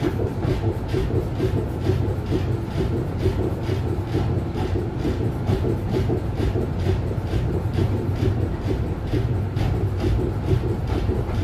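Ride noise inside a 1960 Duewag GT8 tram car in motion: a steady low rumble and hum, with a fast, even clatter running through it.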